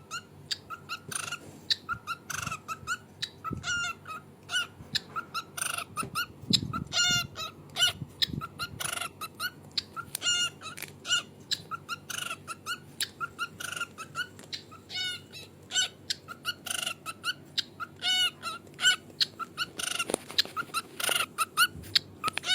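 White parrot giving a rapid string of short calls, two or three a second, mixed with sharp clicks.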